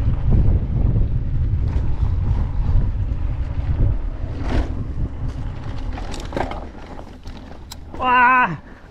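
Wind buffeting the microphone of a mountain bike riding a dirt singletrack, with short knocks and rattles from the bike over the rough trail. The rumble eases after about four seconds.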